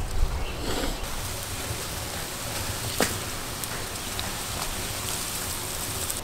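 Water at a rolling boil in a large cauldron: a steady bubbling hiss, with one sharp click about three seconds in.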